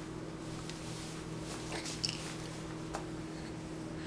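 Quiet room tone: a steady low hum with a few faint, short clicks.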